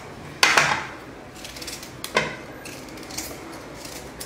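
A few sharp knocks as a kitchen knife and raw amla (Indian gooseberries) are handled against a serving tray, a loud one about half a second in and another about two seconds in, with faint handling noise between.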